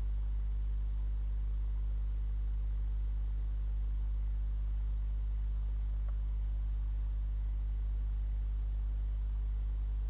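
Steady low electrical hum with faint hiss from the nest-box camera's microphone system, unchanging throughout; the sleeping barn owls make no audible calls.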